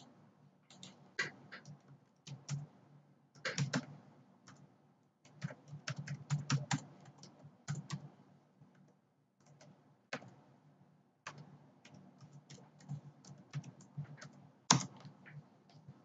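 Typing on a computer keyboard: irregular runs of key clicks with short pauses between them, and one louder click near the end.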